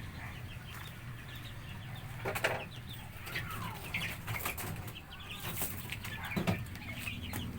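Young chicks peeping now and then, with occasional rustling and knocks as they move about, over a low steady hum.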